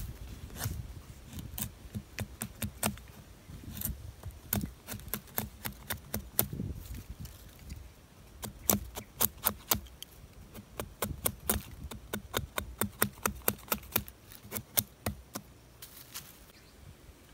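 Machete blade shaving thin curls off a split stick of dry wood, making tinder for a fire: short, sharp scraping strokes in quick runs of about two to three a second, with brief pauses between runs.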